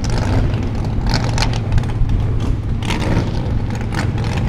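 Formula Offroad hill-climb buggy's engine running hard under load as it climbs a steep slope, a steady loud drone with scattered sharp crackles.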